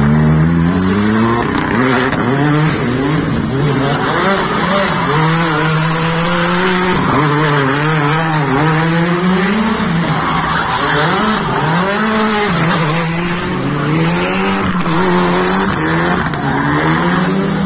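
Hyundai i20 rally car's engine revving hard, its pitch climbing and dropping again and again through the gears, with tyre squeal as it slides round a tight roundabout; a second rally car's engine comes in near the end.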